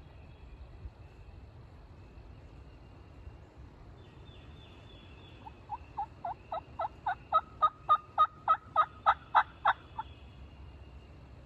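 A bird calling a long series of about fifteen evenly spaced notes, roughly three a second, that grow louder as the series goes on.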